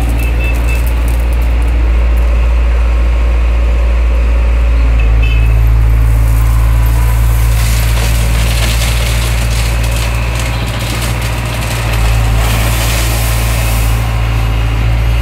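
Heavy diesel machinery engine running steadily with a deep, loud drone. From about halfway, a rough hissing noise rises over it for several seconds, then eases.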